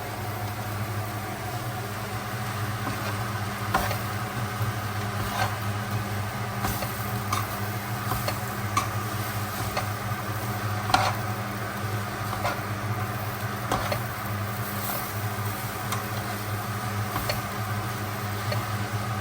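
Kottu roti frying in a pan: a steady sizzle over a constant low hum, with scattered sharp taps of a utensil against the pan as it is stirred.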